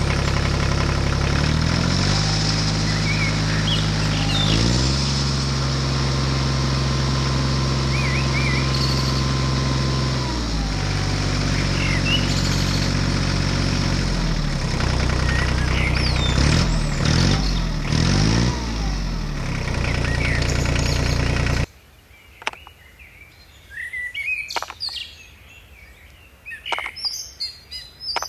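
Tractor engine running, its pitch stepping up and down as it revs and settles, with birds chirping over it. The engine cuts off suddenly about three quarters of the way through, leaving birdsong and a few sharp taps.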